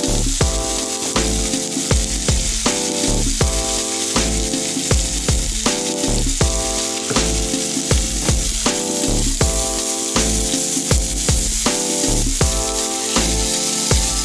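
Background music with chords and a deep bass, over thin beef steaks sizzling on a ridged grill pan.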